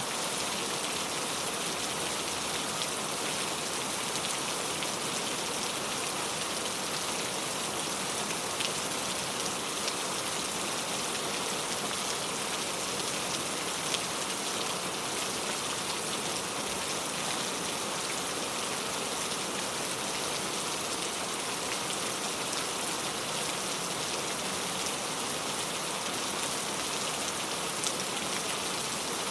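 Steady rainfall, an even hiss of rain with scattered individual drops ticking.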